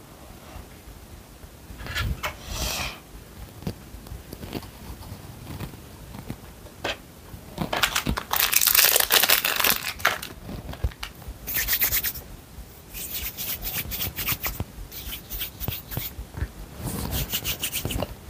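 Scratchy rubbing and handling noises as modelling clay is rolled and pressed by hand, coming in several irregular bursts, loudest about eight to ten seconds in.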